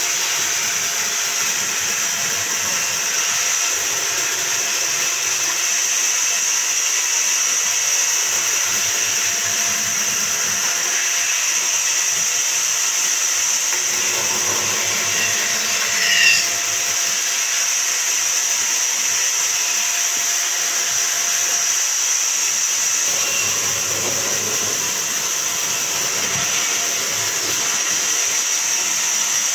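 Band saw running and ripping a thick wooden plank lengthwise: a steady high hiss of the blade cutting through the wood, with one short louder squeal just past halfway.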